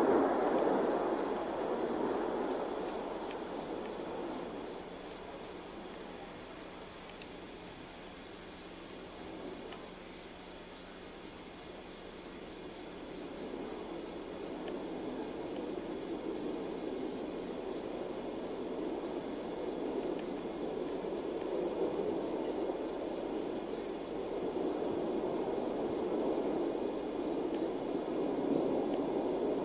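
Distant jet noise from the Blue Angels' F/A-18 Hornet formation. It dies away over the first few seconds after a pass and swells again toward the end. A high, rhythmic chirping at about three pulses a second runs underneath.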